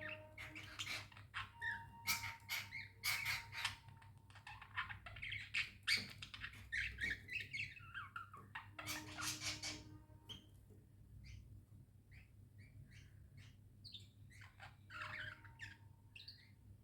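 Budgerigars chirping and chattering in quick, short calls, busy for the first ten seconds or so, then thinning out and picking up again near the end.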